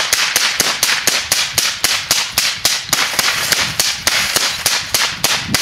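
A rifle fired in rapid succession, a steady string of sharp shots at about four a second.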